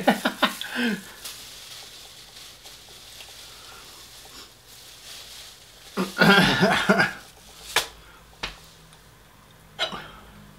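A person's brief voice sounds, one right at the start and a louder one about six seconds in, followed by three sharp clicks.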